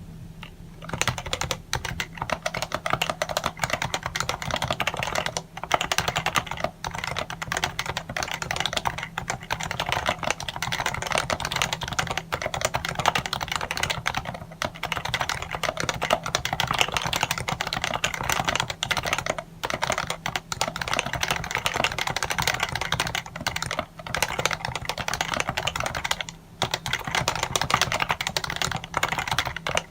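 Continuous fast typing on a Happy Hacking Keyboard Professional 1 with Topre switches: a dense run of key clicks broken by a few brief pauses, over a steady low hum.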